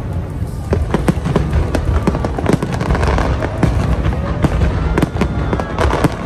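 Aerial fireworks bursting overhead: a dense, rapid string of bangs and crackles over a constant low rumble, with no let-up.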